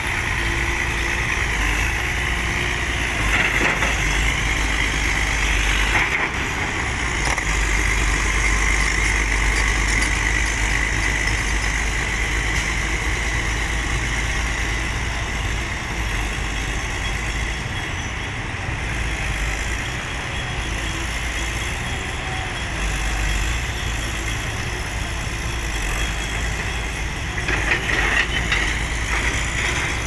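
Caterpillar crawler excavator's diesel engine running steadily as the machine tracks over a sand pile, with a steady high whine over the engine and a few knocks near the end.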